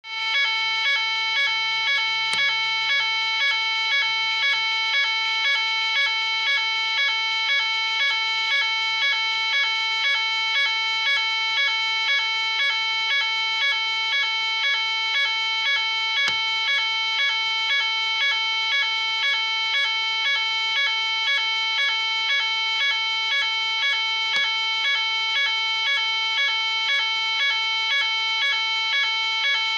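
Fire alarm sounding continuously: a loud, steady buzzy tone that pulses evenly about one and a half times a second.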